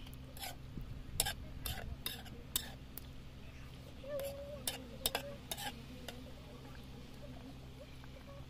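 Metal spatula scraping and knocking against a metal cooking pan as a thick pork curry is stirred: a series of sharp scrapes and taps, about one or two a second, thinning out after about six seconds.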